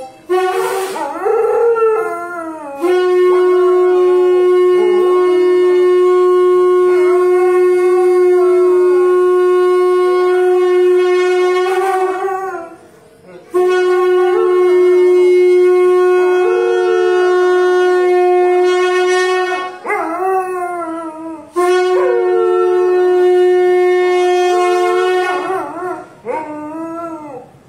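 A conch shell blown in three long, steady blasts, with a dog howling along, its howls rising and falling over and between the blasts.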